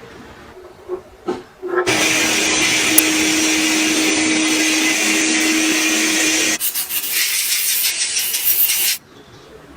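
A power tool running loud with a steady hum under heavy noise as it works material. It starts abruptly about two seconds in, changes character at about six and a half seconds, and cuts off about nine seconds in.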